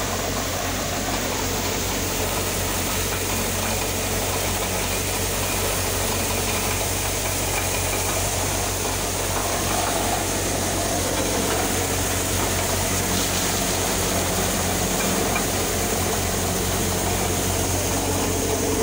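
Hopper-model grain thresher running steadily: a continuous mechanical drone over a low, even hum, with no change in speed.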